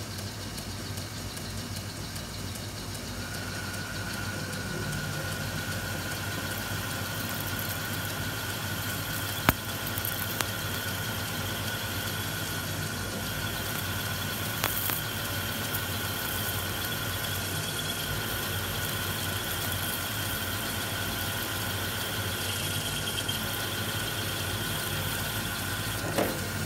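Metal lathe running while a counterbore in the tailstock drill chuck cuts into a spinning aluminium bar with cutting fluid. A steady high squeal from the cut starts a few seconds in over the machine's low hum, a second, higher squeal tone joins about halfway, and there are two sharp clicks.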